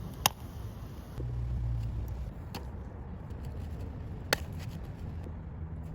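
Popcorn kernels popping: two sharp pops about four seconds apart, with a fainter one between, over a low rumbling background.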